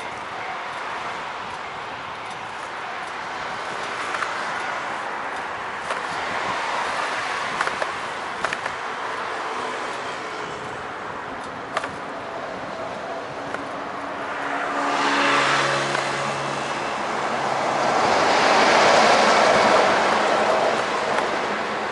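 Street traffic heard from a moving bicycle: a steady rush of wind and road noise, with one motor vehicle going by past the middle, its engine hum rising and fading, and a louder vehicle passing near the end.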